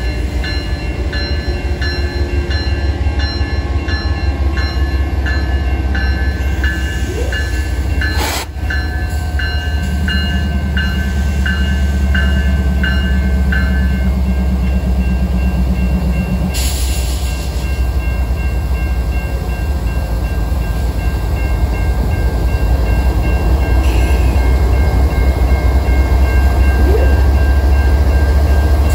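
Train passing with a steady, heavy low rumble. A high ding repeats about twice a second through roughly the first half, and a short hiss comes a little past the middle.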